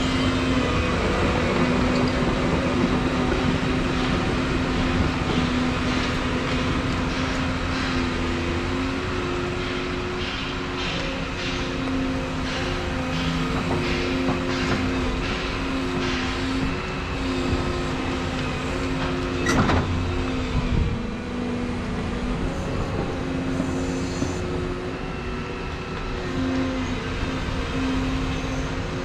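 Volvo EC235EL excavator's diesel engine running steadily under work, heard from the cab, with a run of short rattles as the bucket works crushed stone in the first half and one sharp knock about twenty seconds in.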